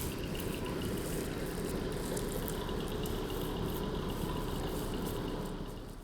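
A vehicle engine running steadily with street traffic noise, a low hum under a dense rush, falling away a little near the end.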